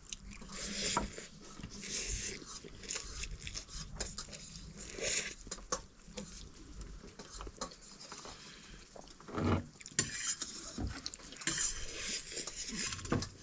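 Quiet, irregular clinks and rustles of dishes and utensils.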